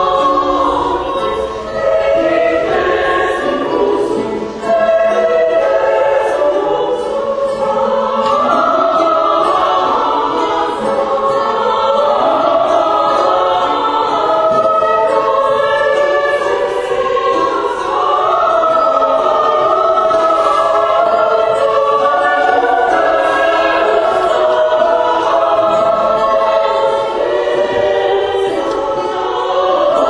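Background music: a choir singing long held notes that shift slowly from chord to chord.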